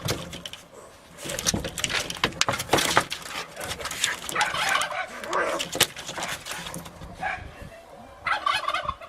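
Cats fighting: a rapid run of sharp scuffling clicks and knocks mixed with bursts of gurgling growls and yowls.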